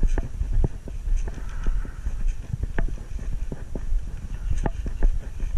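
Quick footsteps on the ground, about three a second, over a steady low rumble.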